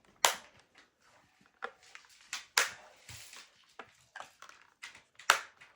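Irregular sharp clicks, knocks and a brief scrape of a screwdriver working the turn-in fasteners on the plastic brush-head cover of a Shark cordless vacuum. The loudest knocks come about a quarter second in and near the end.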